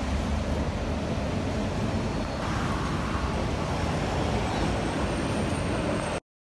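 Busy city street ambience: steady road traffic noise that cuts off suddenly near the end.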